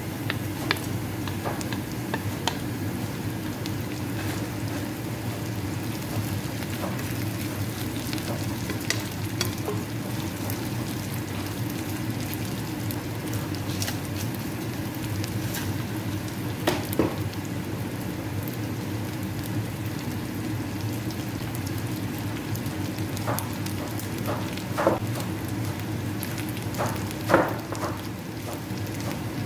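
Chopped onion and roasted carrots sizzling steadily in hot oil in a saucepan while being stirred, with scattered light taps and clicks against the pan, the sharpest near the end.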